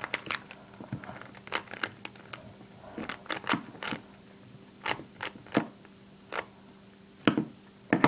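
A 3x3x3 Rubik's Cube being turned quickly by hand: irregular plastic clicks and clacks as its layers snap round. A faint steady hum sits underneath.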